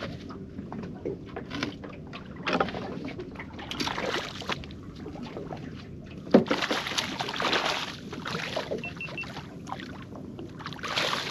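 A small flathead being landed into a kayak: water splashing and rustling in irregular bursts, with one sharp knock against the kayak about six seconds in.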